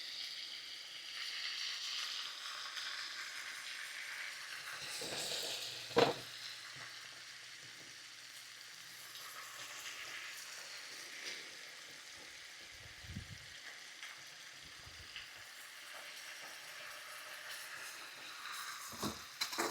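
Lemon butter sauce (butter, olive oil and minced garlic with fresh lemon juice just added) sizzling in a skillet with a steady hiss. There is one sharp knock about six seconds in.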